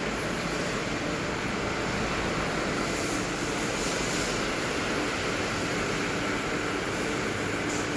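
Steady, even rushing noise of factory machinery running, with no distinct tone or beat.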